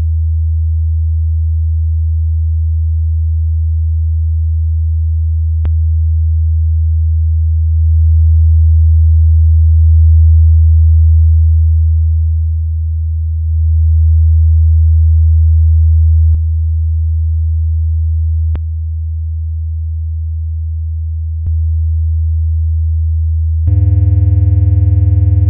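Electronic soundtrack: a deep, steady sine-wave drone that swells and dips in loudness, with a few faint clicks where its level steps. Near the end a chord of higher, steady synthesized tones comes in over it.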